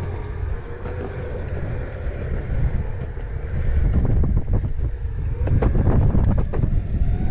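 Electric skateboard rolling over concrete: a low wheel rumble with wind buffeting the microphone, louder from about four seconds in, with a few sharp clicks near the end. The rider puts the noise down to the wheels rubbing on the cement.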